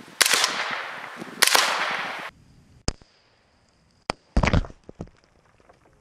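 Two suppressed shots from a 9mm AR-15 carbine about a second and a quarter apart, each trailing off in a long echo. A few seconds in, a close, heavy thud and clatter as an object knocked off by the shot lands on a ground camera.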